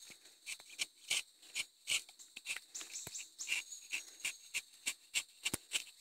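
Rubber-tapping knife scraping along the tapping cut in a rubber tree's bark in short, quick strokes, about three a second, shaving the bark to open the groove for latex. Behind it, steady high insect trilling.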